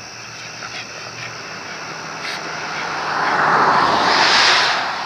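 A car passing by on the road: a rushing tyre-and-engine noise that swells over a couple of seconds, is loudest near the end, then fades.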